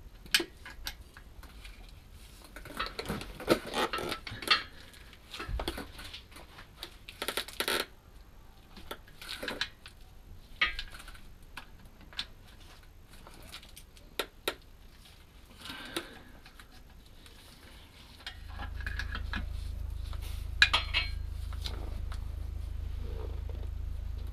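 Ratchet and socket clicking and metal tools clinking while the transfer box filler plug is undone, in short scattered bursts. A steady low hum comes in about three quarters of the way through.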